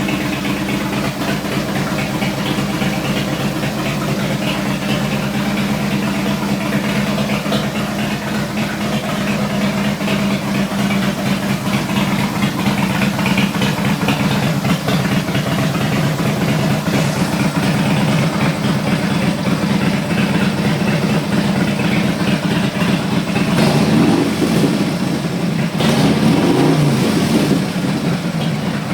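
Harley-Davidson Ultra Classic's 103 cubic inch V-twin running through a Thunderheader exhaust, idling with a steady low rumble. Near the end it is revved briefly twice, each time rising and falling back to idle.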